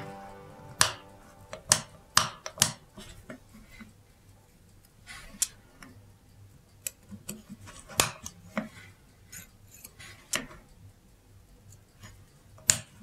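Irregularly spaced small metallic clicks and taps of watchmaker's hand tools against the parts of a clock movement during servicing.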